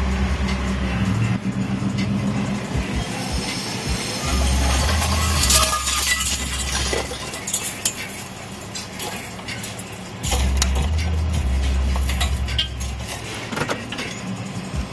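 Scrap metal clanking and clinking as a material handler's grapple picks at a trailer load of old Craftsman lawn mowers. A low engine rumble under it grows louder in spells, near the start, around five seconds in and again around eleven seconds in.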